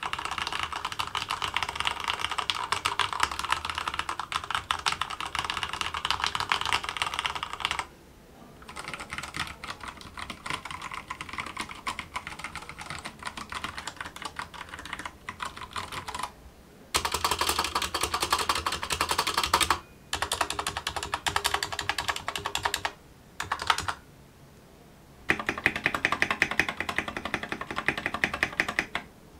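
Rapid typing on mechanical keyboards, in several bursts separated by short pauses. The click sound changes in tone and loudness from burst to burst as the Akko 3087 and an RK G87 keyboard are compared.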